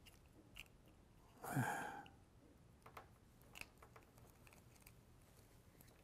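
Faint scattered clicks and small scrapes of a plastic UK three-pin plug being fitted back together by hand. About one and a half seconds in, a short falling hum from a man's voice.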